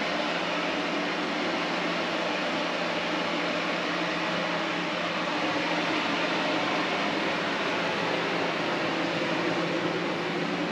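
Steady rushing noise and low hum of a running fan or similar motor-driven blower, unchanging throughout.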